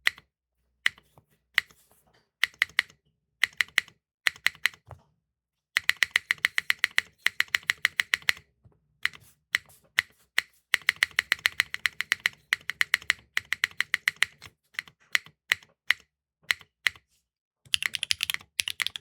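Keygeek linear mechanical switches in a Neo65 Core Plus keyboard clacking: a few single spacebar presses, then quick runs of keystrokes with short pauses between.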